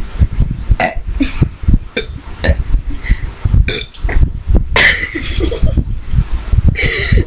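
Girls burping after drinking carbonated Sprite: a series of burps, the longest and loudest about five seconds in and another strong one near the end.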